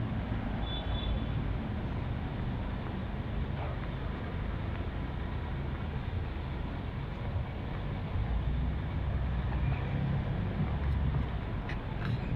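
Steady low vehicle rumble with road noise, and a brief high tone about a second in.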